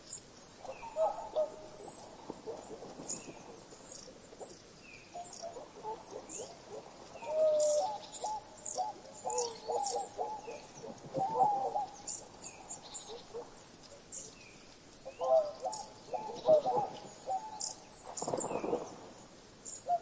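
Several birds calling: thin high chirps over a short call that repeats about once a second, with bursts of lower, mellow pitched calls.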